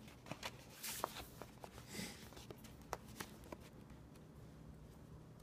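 Light handling of a cardboard software box and folder: scattered soft taps, rustles and slides of card, with brief swishes about one and two seconds in.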